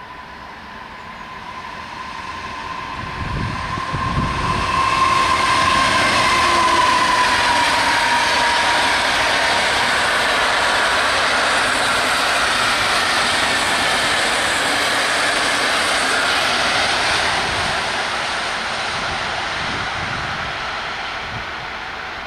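EP09 electric locomotive and its train of passenger coaches passing at speed: a steady whine that dips in pitch as the locomotive goes by, then the loud, steady rolling of the coaches on the rails, fading as the train recedes.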